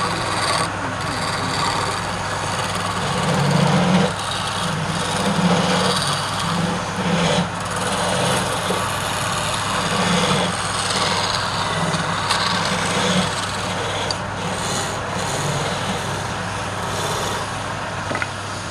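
Wood lathe running with a steady motor hum while a turning tool cuts the spinning wood, the scraping cut swelling and easing every second or so as the tool is worked along the piece.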